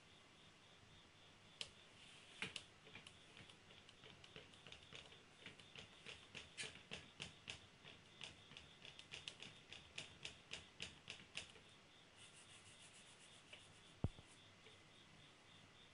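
Pencil strokes on drawing paper: a quick run of light, scratchy ticks, a few per second, that thins out about twelve seconds in. A single knock on the board comes near the end and is the loudest sound.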